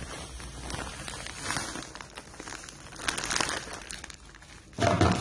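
Plastic sugar bag crinkling as it is handled and tipped, sugar pouring from it into a pot, with louder rustling about three seconds in and a heavy thump near the end.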